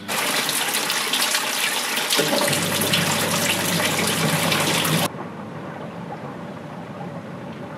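Water running hard from a tap, a loud even rush that starts abruptly and cuts off suddenly about five seconds in; a low hum joins it about two seconds in. After the cut-off only a quiet steady hiss remains.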